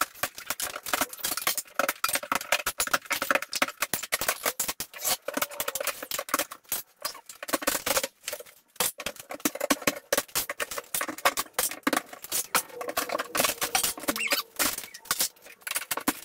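Old wooden window frame and trim being pried off the wall with a pry bar: a dense, unbroken run of sharp cracks, creaks and squeaks of wood and nails.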